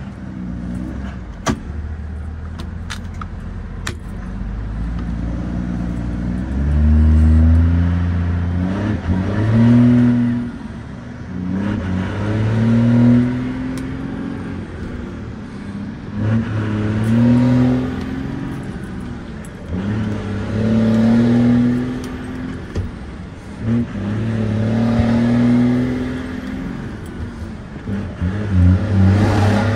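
A truck's diesel engine pulling hard through the gears, heard from inside the cab. The pitch climbs in each gear and falls back at each of about six shifts, with a brief lull as the clutch goes in.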